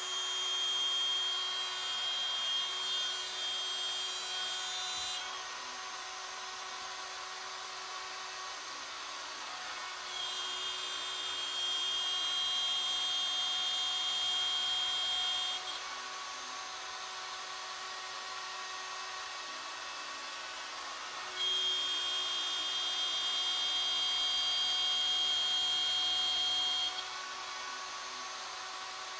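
Router on a CNC ornamental mill, fitted with a two-flute straight cutter, running steadily and milling a groove in a wooden leg blank. Three times it gets louder for about five seconds with a higher whine as the cutter passes through the wood, and in between it runs more quietly.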